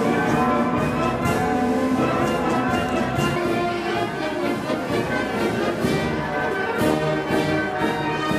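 Brass band playing sustained chords.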